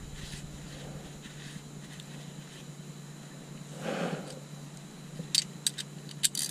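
Quiet handling of hand tools: a short scrape about four seconds in as a ratchet is picked up off concrete, then a few sharp metal clicks near the end as a chrome socket is pushed onto the ratchet.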